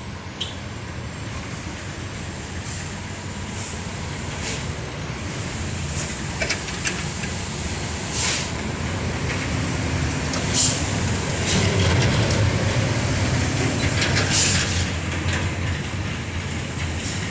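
A heavy dump truck's engine running with a low steady rumble, growing louder to about twelve seconds in and then easing slightly. Short metallic clanks and rattles come several times.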